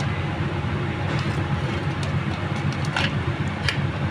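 Loose coil damper springs on a worn car clutch disc giving a couple of light metallic clicks about three seconds in as they are pushed by hand, over a steady low rumble. The springs have worked loose in their windows, a sign that the clutch plate should be replaced.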